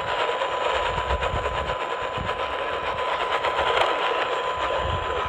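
Radio static from a weak broadcast signal: a dense rapid crackle, with a faint steady whistle running through it.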